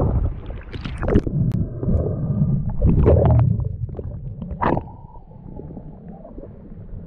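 Choppy seawater sloshing and splashing against a camera at the waterline during a dive, with sharp splashes, turning to a quieter, muffled underwater rumble about five seconds in as it goes under.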